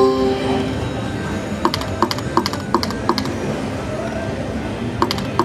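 Konami Riches Drop Panda's Firecracker video slot machine in free spins: a chime fades out at the start, then quick runs of ticking sound effects as the reels spin and land, twice, over steady background noise.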